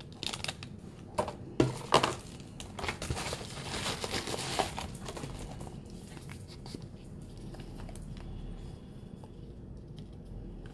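Packaging of a small perfume sample vial being handled and unwrapped, with crinkling and a few sharp clicks. The clicks come in the first two seconds, a longer stretch of crinkling follows around four seconds in, and only quieter handling is left after that.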